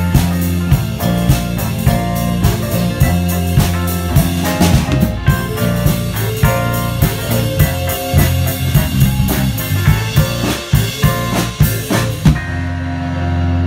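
Live folk band playing a song with drums and guitar, ending on a final hit about twelve seconds in, after which a held chord rings on.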